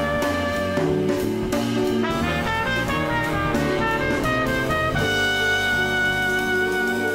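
Background jazz music with horns and a drum kit, changing to long held notes about five seconds in.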